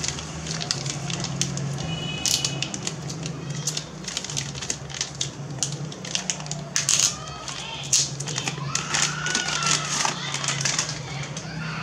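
Clear plastic bag crinkling and crackling in irregular bursts as it is handled and pulled off a small boxed metal device.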